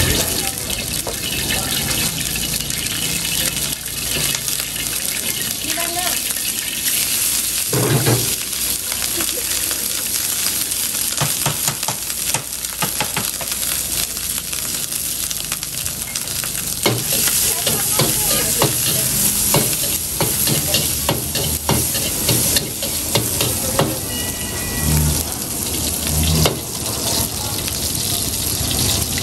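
Squid frying in hot oil in a wok over a gas flame: a steady sizzle. A few dull knocks sound, one about eight seconds in and two near the end.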